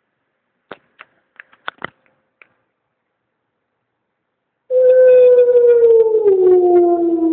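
A few short clicks, then a loud, long dog howl that starts nearly five seconds in and slides slowly down in pitch.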